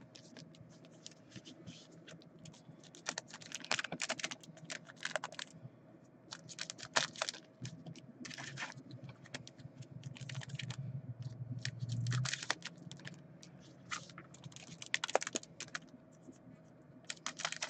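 Quiet, irregular crinkles and clicks of foil trading-card packs (2017 Donruss Optic baseball) being handled, cut open with scissors and stacked.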